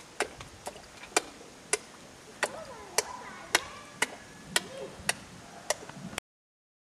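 A hand tapping the surface of a still pool in a steady rhythm, about two sharp taps a second, until the sound cuts off suddenly near the end.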